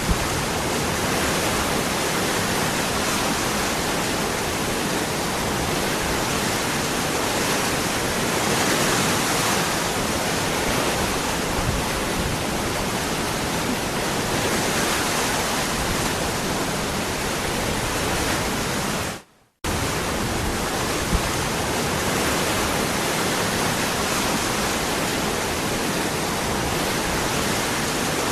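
Waterfall rushing steadily. The sound cuts out for a split second about two-thirds of the way through, then resumes unchanged.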